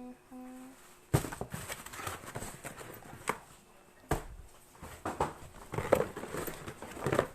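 Plastic packaging crinkling and rustling in a stream of irregular crackles as items are handled and unwrapped.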